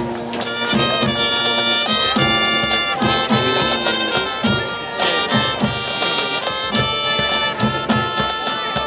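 Marching band playing: the brass hold chords that change every second or so over a steady drum beat.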